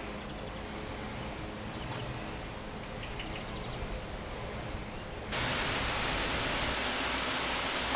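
Outdoor ambience: a steady hiss that jumps abruptly louder about five seconds in, with two faint, brief, high bird chirps.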